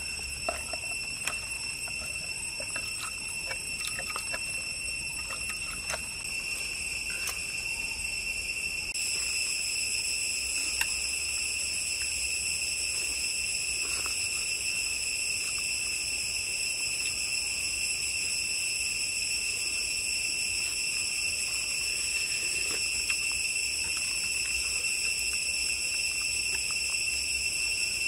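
A chorus of forest insects makes a steady, high-pitched, unbroken trill in several even tones. It gets a little louder about nine seconds in. A few faint light clicks come in the first six seconds.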